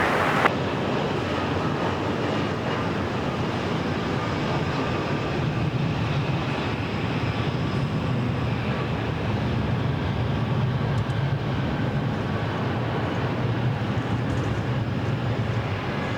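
Jet airliner's engines heard as it moves past: a steady roar with a low rumble that builds about a third of the way in and eases near the end.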